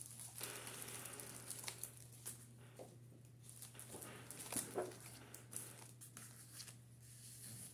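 Faint rustling and light taps of a clear-stamp sheet and its plastic sleeve being handled on a desk, over a steady low hum.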